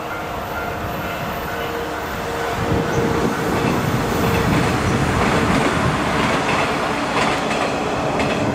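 Sanyo Main Line electric train passing, its wheels rumbling on the rails. The sound swells about two and a half seconds in and stays loud as the cars go by, with a steady tone in the first half.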